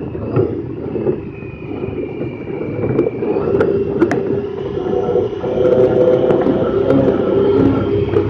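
Honda Pioneer 1000-5 side-by-side's parallel-twin engine running under way, a steady drone heard from inside the cab that grows louder over the first several seconds as the machine picks up speed. Two sharp clicks, like loose parts rattling, sound near the middle.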